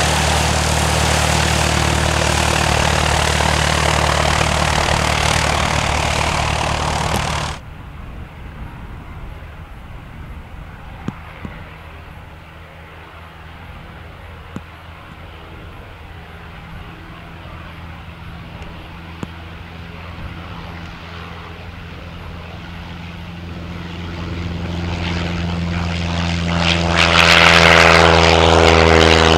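Piper Cherokee Archer's four-cylinder Lycoming engine and propeller: first loud and steady at taxi power close by. After an abrupt cut about seven seconds in, it is distant and quieter at full takeoff power, growing steadily louder as the plane runs toward and climbs past, loudest near the end.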